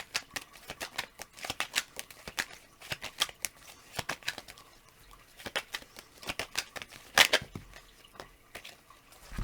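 Tarot cards being shuffled and handled: a run of irregular soft snaps and flicks, with one louder snap about seven seconds in.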